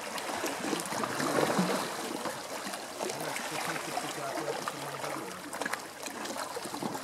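Sea water lapping and trickling at the shore, a steady splashy wash that swells about a second in.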